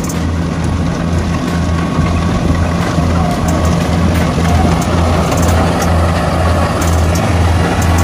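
Kubota combine harvester's diesel engine running steadily under load while it cuts and threshes rice, with a low hum that pulses about twice a second.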